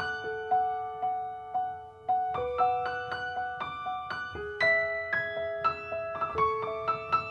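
Background music: a light piano melody of struck notes, several a second, over held lower notes.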